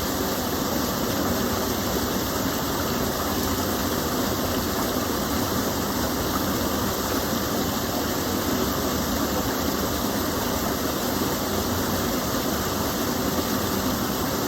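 Small waterfall from a gentle stream of water, a steady, even rush of falling and flowing water.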